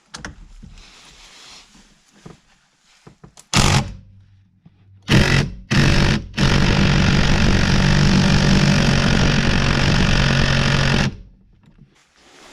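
A 1/2-inch impact wrench hammering on a tight steering-wheel nut: three short bursts, then one long run of about five seconds that cuts off suddenly.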